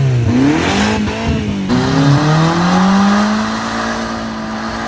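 Demolition derby car engine revving hard, its pitch climbing and falling, then held high for a couple of seconds before dropping off near the end.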